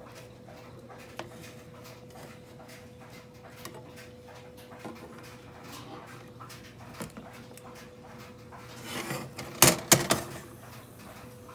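Steady faint hum with a few scattered light clicks, then a cluster of loud, sharp knocks and clattering about nine to ten seconds in.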